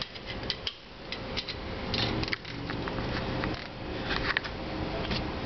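Scattered light metallic clicks and taps of a hand wrench working the caliper bolts of a front brake, over a low steady background hum.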